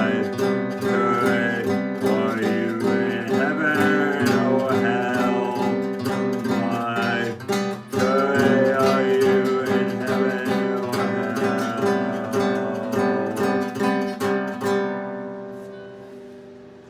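Acoustic guitar strummed in a steady rhythm, then a last chord left to ring and fade away near the end.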